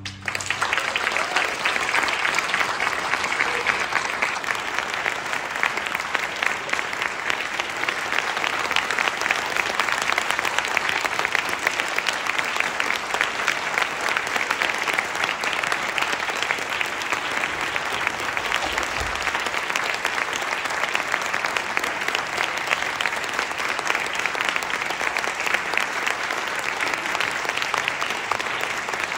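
Large audience clapping steadily.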